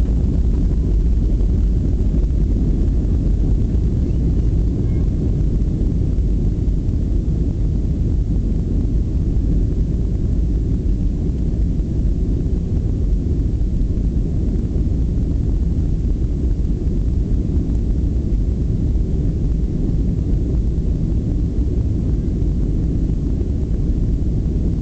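Jet airliner on its takeoff roll, heard from inside the passenger cabin: engines and wheels on the runway making a steady low roar.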